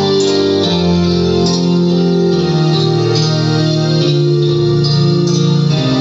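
Karaoke instrumental music with long held keyboard notes, played loudly through a videoke machine's speakers.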